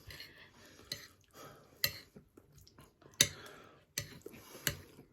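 Cutlery clinking and scraping on a plate while someone eats, with sharp clicks about five times and soft chewing between.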